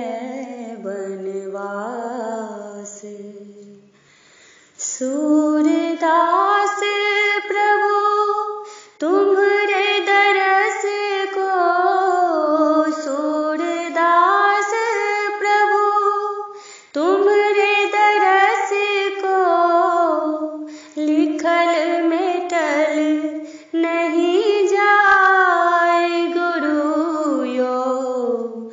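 A woman singing a Maithili parati (devotional morning song) solo, with no accompaniment heard, in long melodic phrases separated by brief pauses for breath.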